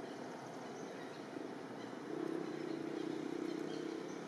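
A low, steady motor drone, like an engine running, growing louder about two seconds in.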